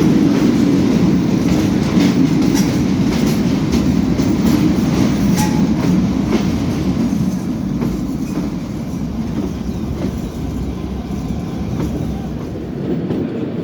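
Kalka–Shimla narrow-gauge toy train coach running along the track, heard from inside: a steady, loud rumble with a few faint clicks in the first half.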